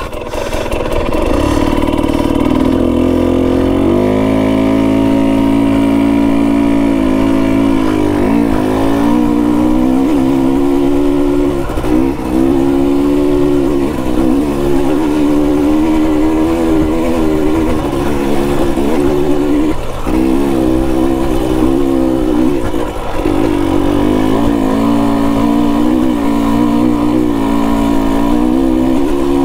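KTM 250 XC-W TPI single-cylinder two-stroke dirt bike engine pulling away and being ridden. The revs climb at first, then rise and fall with the throttle, with short drops now and then.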